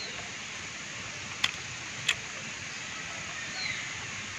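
Steady background hiss broken by two sharp clicks about two-thirds of a second apart, and a faint short high falling chirp near the end.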